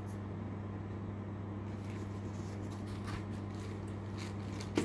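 Steady low hum of background noise with a few faint clicks from the compressor kit's parts being handled.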